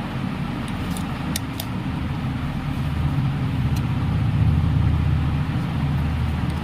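Low, steady rumble like a motor vehicle's engine, growing louder in the middle, with a few light clicks about a second in.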